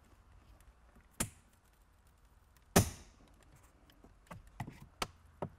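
Plastic trim tool prying at a MINI Cooper's dashboard speaker grille, which is still held tight by its clips: a sharp click about a second in, a louder knock near the middle, and a run of light plastic clicks near the end.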